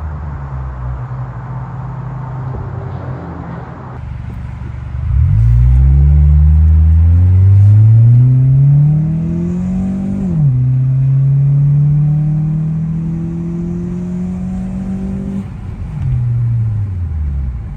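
2004 Acura TSX's 2.4-litre four-cylinder, fitted with a Tsudo SP2 cat-back exhaust, giving a deep exhaust note. The engine pulls with its pitch climbing steadily for about five seconds, drops sharply at a gear change, holds a steady tone, and falls away near the end.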